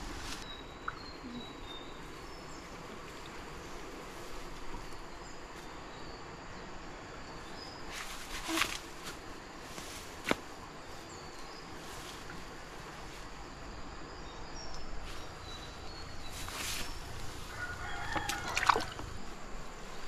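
A chicken calls in a short pitched burst near the end, over a steady outdoor hiss with faint small-bird chirps. A few sharp rustles and snaps of brush come in the middle.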